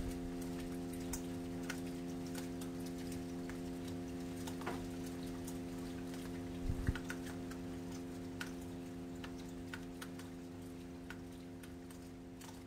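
A sustained keyboard chord holding and slowly fading out at the end of a song, with scattered faint clicks over it.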